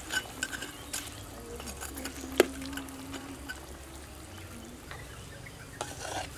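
Metal ladle stirring frog pieces through hot broth in a metal wok: liquid sloshing with light scrapes and clinks of the ladle on the wok, and one sharper clink about midway.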